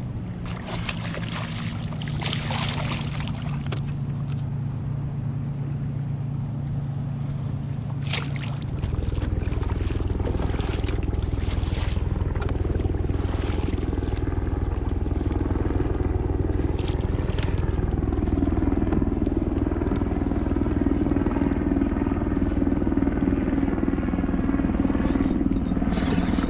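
A motorboat engine running steadily nearby. Its pitch shifts about nine seconds in, and it grows louder through the second half.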